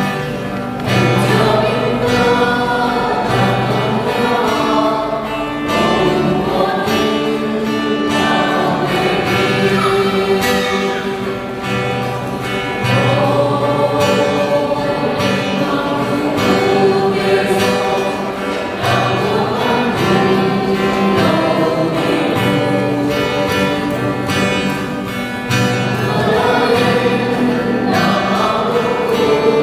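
A small mixed choir of men and women singing a hymn together, with a guitar playing along.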